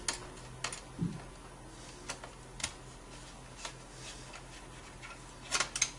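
Scattered light clicks and taps of a plastic alarm control panel being handled while its single back screw is taken out, with a small cluster of clicks near the end.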